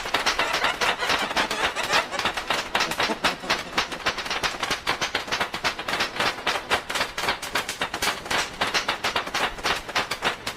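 A fast, irregular run of sharp clicks and clacks, many a second, a cartoon sound effect.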